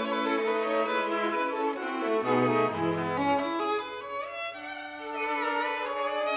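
Background music of bowed strings, led by violin playing slow, held notes, with a few lower cello-range notes briefly near the middle.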